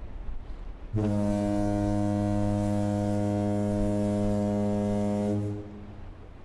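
One long, deep, steady blast of a ship's horn, starting about a second in and lasting about four and a half seconds.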